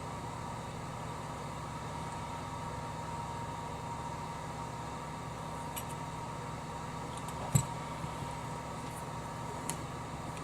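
Steady low hum with a thin high tone, broken by a few light clicks and one sharp short knock about seven and a half seconds in.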